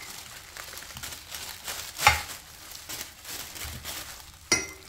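Clear plastic bag and disposable plastic glove crinkling and rustling as a pork shoulder is handled and rubbed with adobo inside the bag, with a sharper crinkle about two seconds in and another near the end.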